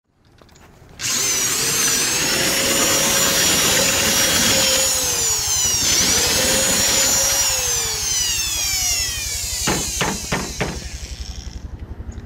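Electric power drill running at full speed, its whine dipping in pitch and picking back up around the middle before winding down; a few sharp clicks follow near the end.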